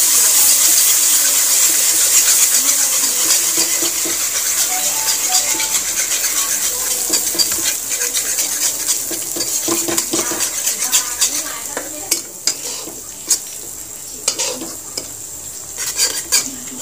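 Onion-tomato masala sizzling in a metal kadhai while curd is stirred into it with a flat spatula. The sizzle is loud at first and dies down over the first dozen seconds, leaving the spatula's scrapes and knocks against the pan more distinct toward the end.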